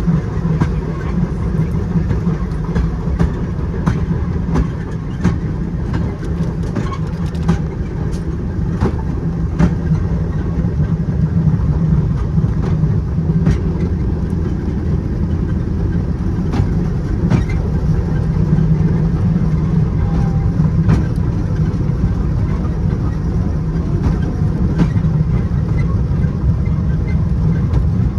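Steady low rumble of a rail vehicle in motion, heard from on board. Irregular sharp clicks and clacks come from the wheels running over the track.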